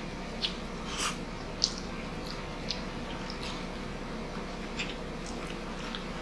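Close-up mouth sounds of eating grilled pork and rice by hand: chewing with several short wet lip smacks and clicks, the sharpest about a second and a half in. Underneath, the steady hum of a window-type air conditioner's compressor.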